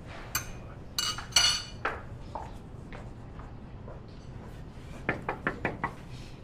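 Spoon and china cup and saucer clinking on a table: a few ringing clinks in the first two seconds, then a quick run of about five light taps a little after five seconds in.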